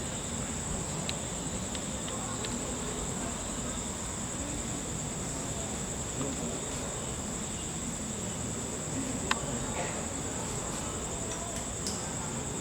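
Crickets trilling in one continuous, steady high-pitched drone, over a faint low murmur of people.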